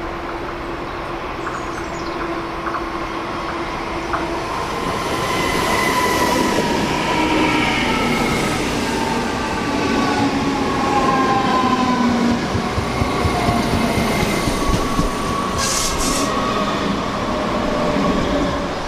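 A DB Class 422 S-Bahn electric multiple unit runs past along the platform with a rolling rumble of wheels on rail and several high tones that slide slowly in pitch. It grows louder about five seconds in and drops away near the end, with a brief hiss about sixteen seconds in.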